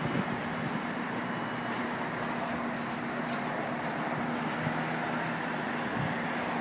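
Heavy vehicle engine running steadily at a constant speed, a low even hum with faint irregular clicks over it.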